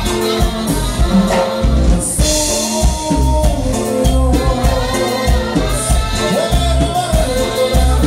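A live Mexican regional dance band playing with a singer, over a strong steady bass beat.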